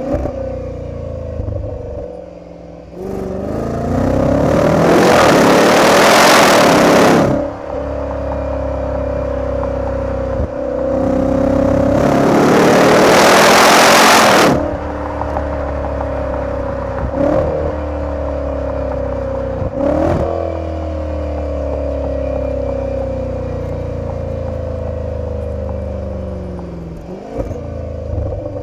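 Supercharged 5.0-litre V8 of a Range Rover Velar SVAutobiography heard right at its quad exhaust tips on the move: two hard accelerations, each a rising, loud blare that cuts off sharply, between stretches of steady cruising. After the second, the engine note sinks slowly as the car eases off, with a few short cracks from the exhaust.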